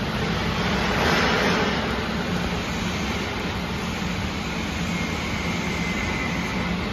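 Steady running noise of factory machinery, likely the solder billet casting machine's electric motor and gearbox, with a low hum throughout. A faint high whine joins about five seconds in.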